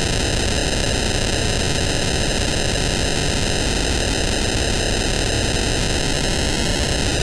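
ARP 1601 sequencer clone's CV output, clocked at audio rate by the square wave of an ARP 2600 clone's VCO-1, used as an oscillator and heard through the synth's mixer: a steady, harsh, hiss-like noise tone whose colour begins to slide slightly lower near the end as the clock frequency is changed.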